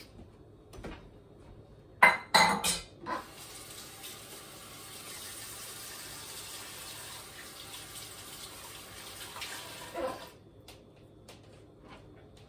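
A few loud clatters of dishes in a kitchen sink, then the tap runs steadily for about seven seconds and is turned off, as hands are washed after handling raw pork.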